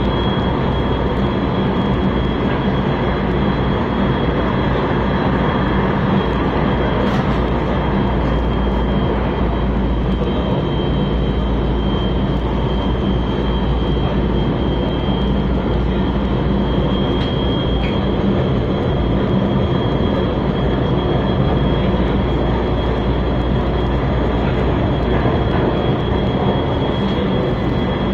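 Cabin noise of a CSR Zhuzhou AMY light-rail train running at speed: a steady, even rumble of wheels on track and running gear, with a thin, steady high-pitched tone over it.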